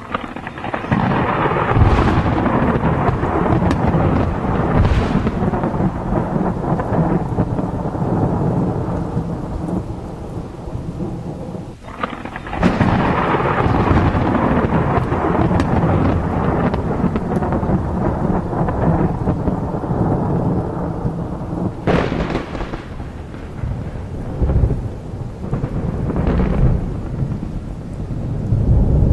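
Recorded thunderstorm: heavy rain with rumbling thunder that starts abruptly, broken by several sharp thunder cracks, one of them just after a brief drop in the noise midway through.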